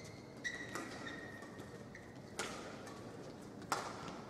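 Shuttlecock struck by badminton rackets three times in a rally, sharp cracks about one and a half to two seconds apart. A high squeak of court shoes runs through the first half.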